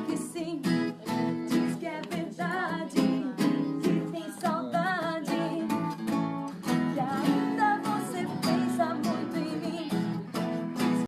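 Acoustic guitar strummed in chords with a voice singing a melody over it, a song played live.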